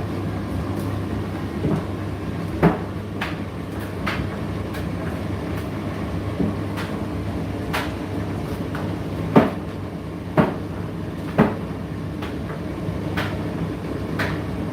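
Indesit IDC8T3 condenser tumble dryer running mid-cycle: a steady motor hum with irregular clicks and knocks from the tumbling load, a few sharper knocks standing out.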